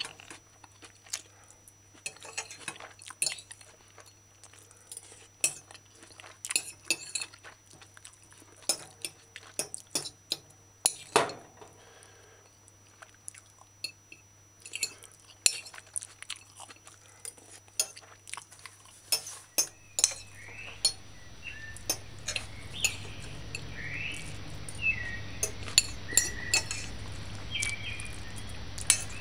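Metal fork clinking and scraping on a ceramic dinner plate while eating, in irregular taps. In the last several seconds a background hiss rises, with short high chirps over it.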